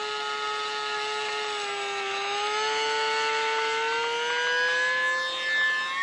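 Small electric motor and propeller of a ParkZone ICON A5 ultra micro RC flying boat, running with a steady high whine. The pitch dips a little about two seconds in, then climbs gradually as the motor speeds up.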